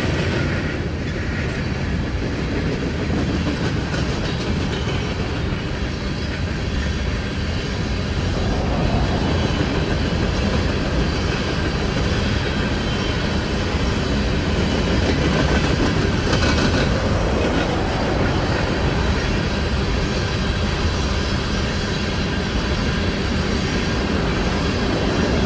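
Coal train's freight cars rolling steadily past, steel wheels running on the rails.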